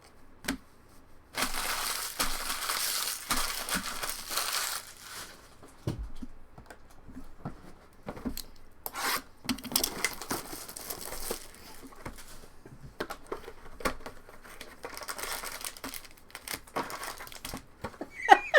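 Trading card pack wrappers being torn open and crinkled, in three stretches of a few seconds each, with light clicks and taps of handling between them.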